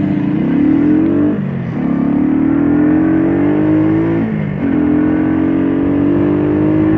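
Shineray Jet 50cc scooter engine pulling away and accelerating. Its pitch climbs, drops briefly about a second in, climbs again, dips once more just past halfway, then holds steady at cruising speed.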